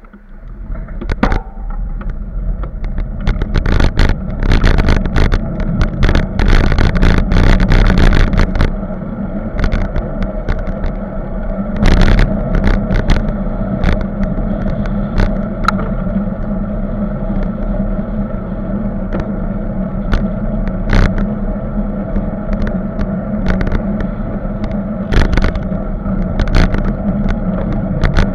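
Bicycle-mounted camera picking up riding noise: a steady rumble and hum from the road and wind, broken by frequent knocks and rattles from the mount over the road surface. The rattling is densest for several seconds near the start.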